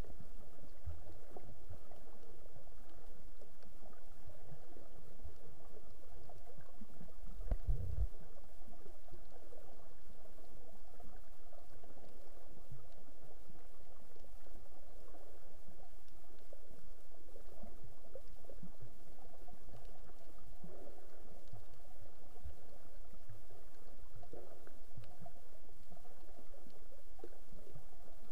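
Muffled underwater noise picked up by a camera in its waterproof housing: a steady, dull, watery rumble with a few soft low thumps, the strongest about eight seconds in.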